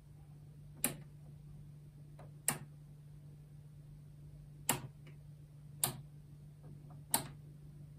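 Knob on a bench signal generator being turned, giving five sharp clicks at uneven intervals with a few fainter ticks between, over a steady low hum.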